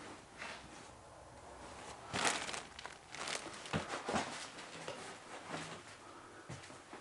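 Pillows and bedding in a wooden crib being lifted and shifted by a gloved hand: a series of short fabric rustles, the loudest about two seconds in.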